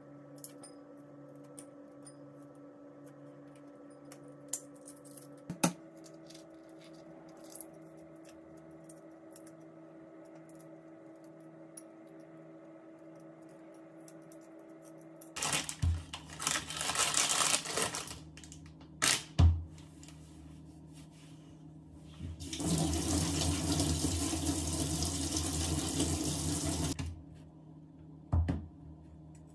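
Hard-boiled eggs being peeled by hand, the shells giving small crackling clicks, then a kitchen tap running in two spells, the second longer at about four seconds. A sharp knock falls between the two spells.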